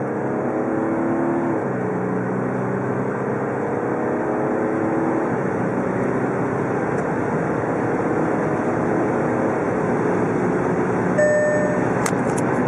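Volkswagen Touareg 3.0 TDI V6 diesel accelerating hard, heard from inside the cabin. The engine note climbs, then drops at upshifts of the 8-speed automatic about a second and a half and five seconds in. After that, tyre and wind noise build with speed and drown it out. A short beep sounds near the end.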